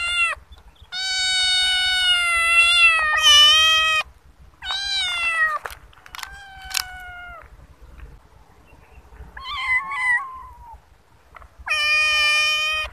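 Thin stray kittens meowing: five long, high-pitched meows, the first drawn out for about three seconds and the fourth fainter than the rest.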